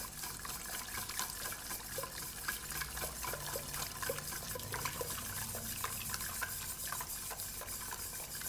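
Hot cream pouring in a thin, steady stream into a stainless steel pot of egg yolks, with a stirring utensil ticking lightly against the pot: the yolks are being tempered with the hot cream for egg liqueur.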